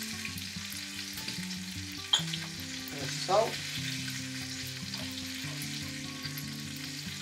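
Half shoulder of lamb searing in oil in a frying pan, a steady sizzle. A sharp knock sounds about two seconds in.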